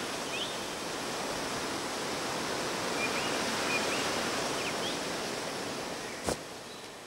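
Steady rushing outdoor ambience, like running water or wind through trees, with a few faint high chirps. A single sharp click comes about six seconds in as the rushing fades.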